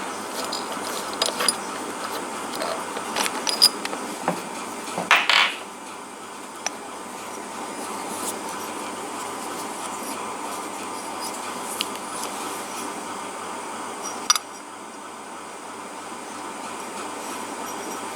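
Small metal clicks and clinks of a pneumatic quick exhaust valve being taken apart by hand, most of them in the first six seconds, with a longer rattle about five seconds in and one more click near fourteen seconds. A steady hiss of room background runs underneath.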